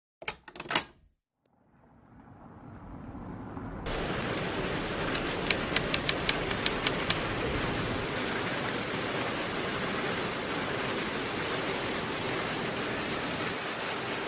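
Typewriter-style key clicks, about nine in quick succession, a typing sound effect for the date as it is typed on screen. Beneath them a steady rushing hiss of outdoor ambience fades in and turns louder about four seconds in, with a few clicks at the very start.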